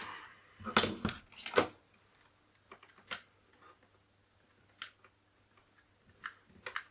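Scattered clicks and knocks of small tools and parts being handled on a workbench: a quick cluster about a second in, then single clicks every second or two.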